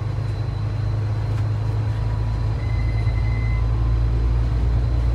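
Steady low rumble of a moving bus, engine and road noise heard from inside, with a faint high tone for about a second midway.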